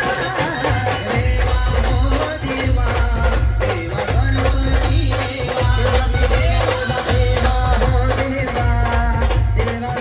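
A live band plays a Marathi Ganpati devotional song: a wavering melody over a heavy bass and a steady drum beat.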